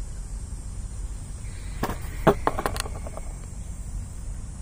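Wind rumbling on the microphone, broken about two seconds in by a quick, irregular run of sharp clicks and knocks lasting about a second.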